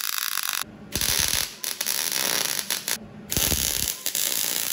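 MIG welder's arc crackling as it welds two steel beams together, in short runs with brief breaks about two-thirds of a second in and again around three seconds.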